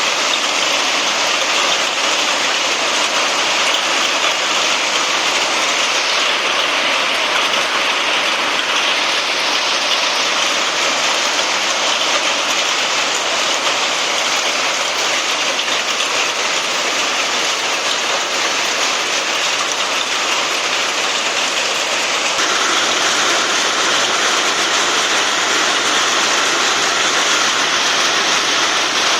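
Rain mixed with hailstones falling, a loud steady hiss with no let-up.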